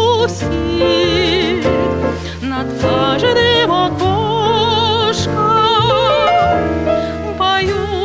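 A woman singing a lyrical song with wide vibrato, backed by a jazz quartet of grand piano, double bass and drum kit.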